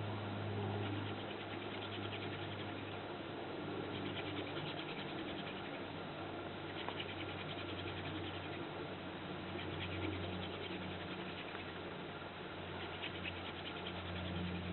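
Wooden hand-drill spindle spun back and forth between the palms, its tip scratching against the wooden hearth board in repeated runs of rubbing as friction builds toward an ember. A steady low hum lies underneath.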